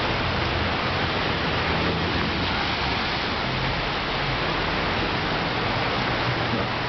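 Heavy rain pouring steadily onto a wet street: an even, unbroken hiss of falling water.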